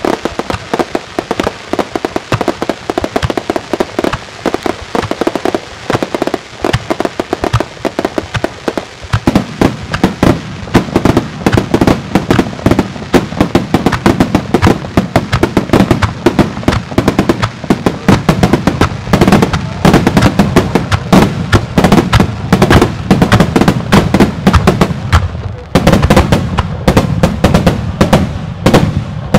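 Starmine fireworks: a continuous rapid-fire barrage of shells bursting, many bangs a second overlapping one another. It grows heavier and louder about nine seconds in and stays that way, with a brief lull a few seconds before the end.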